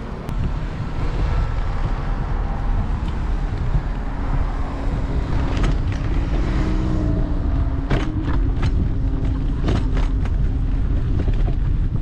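Ride noise from an Apollo Explore electric scooter rolling over concrete: a steady low rumble of tyres and wind on the handlebar-mounted camera. A few sharp clicks and knocks come near the end.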